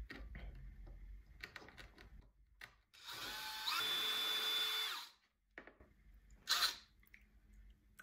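Cordless drill with a diamond bit running for about two seconds as it bores into a lava rock held under water, its pitch stepping up partway through the run. A short second burst from the drill comes about a second and a half later.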